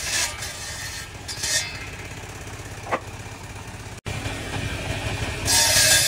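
Table saw with a circular blade ripping rough timber: the saw runs with a steady low hum, with short bursts of cutting early on and the blade biting back into the wood with a loud hiss about five and a half seconds in.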